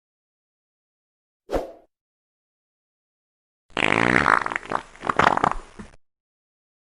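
A person farting twice: a short fart about one and a half seconds in, then a longer one of about two seconds that starts higher and drops in pitch, coming out in several spurts.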